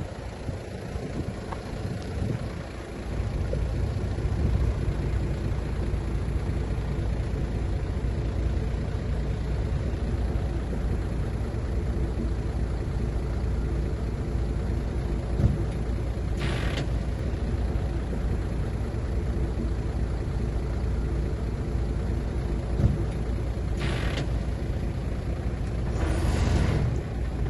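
Heavy diesel earth-moving machinery, bulldozer and dump-truck engines, running steadily at work. Three short bursts of hiss come about two-thirds of the way in and near the end.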